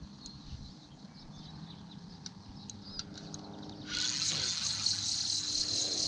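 Spinning reel cranked fast, taking up line as the hooked fish swims toward the boat: a steady high whirr starts suddenly about four seconds in, after a few light clicks.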